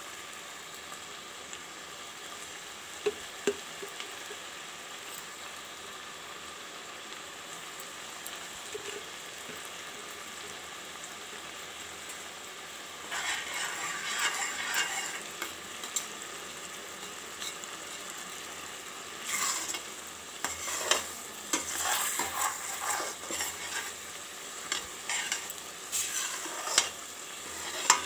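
Jaggery, coconut and chana dal filling bubbling and sputtering in a stainless steel kadai as it cooks down and thickens. From about halfway through, a wooden spoon stirs and scrapes the pan again and again.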